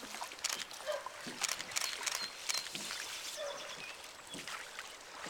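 River water splashing and trickling around a raft, with irregular short splashes over a steady hiss. A few brief high bird chirps and some short low animal calls come through several times.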